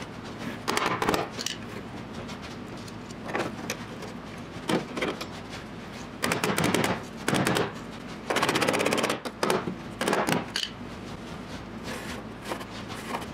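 Metal clanks, rattles and scrapes in irregular bursts as a sheet-steel patch is worked into place on a car's rear wheel well and clamped with locking pliers; some bursts are quick runs of rapid taps.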